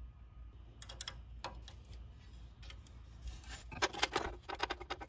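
Light metallic clicks and rattles of a hand tool loosening the 8 mm nuts that hold a battery charger's aluminium diode panel. A few clicks come about a second in, then a denser run of clicks in the second half.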